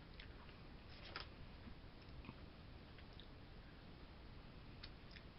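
Faint chewing of a mouthful of white cheddar caramel popcorn, with a few soft crunches and clicks.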